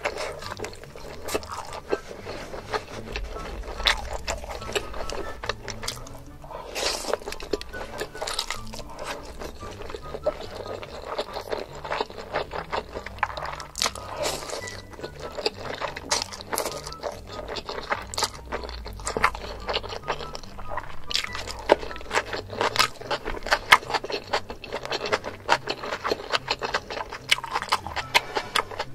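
Close-up eating sounds: crunchy bites and chewing, with many sharp crackles, over background music with a stepping bass line.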